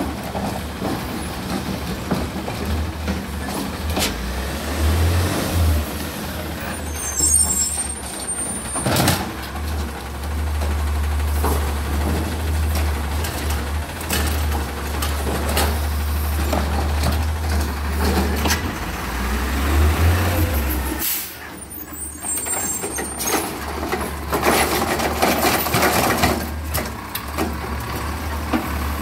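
Heil Rapid Rail automated side-loader garbage truck on an Autocar ACX chassis running on the street, its engine rumbling steadily, with air brakes hissing and a few sharp knocks as it works its way along the carts.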